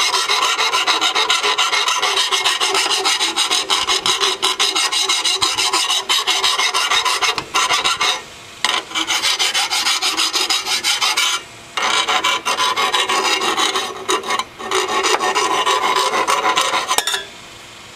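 Hand file (rasp) scraping back and forth in quick strokes along the edge of a lawnmower blade, sharpening it. There are brief pauses about eight and a half, eleven and a half and fourteen and a half seconds in, and the filing stops shortly before the end.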